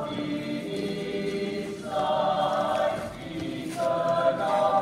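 Choir singing slow, held chords that change about every two seconds.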